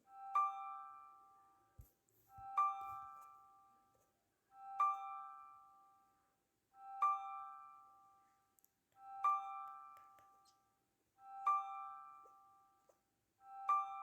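Background music: a soft piano-like two-note figure, a low note then a higher one, each ringing out and fading, repeating about every two seconds.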